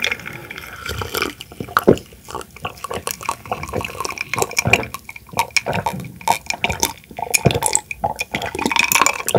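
A person drinking from a glass mug close to the microphone: a run of irregular gulps and swallows with the wet sound of liquid in the mouth and throat.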